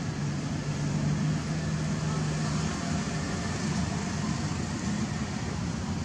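Steady background noise with a low, even hum that fades out about halfway through.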